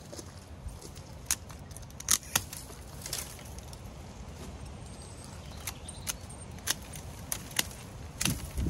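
Irregular sharp clicks and snaps of hand work in a garden border, about ten of them, the loudest a quick pair a little after two seconds in, over a low steady rumble.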